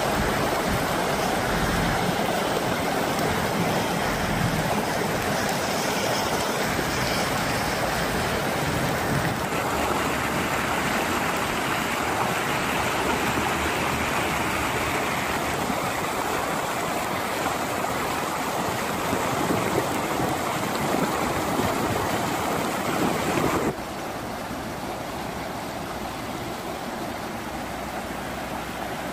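Muddy flash-flood water rushing over sand and rocks in a streambed, a steady rushing noise. Near the end it drops suddenly to a quieter, steady rush.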